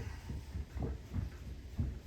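A run of dull knocks and taps, about three or four a second and irregularly spaced, stopping near the end: parts of a fan-coil blower motor assembly being handled and tapped during the repair.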